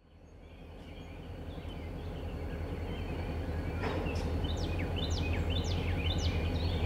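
Birds chirping, fading in, with a quick run of sharp downward-sweeping calls past the middle, over a low rumble that grows steadily louder. There is a single click about four seconds in.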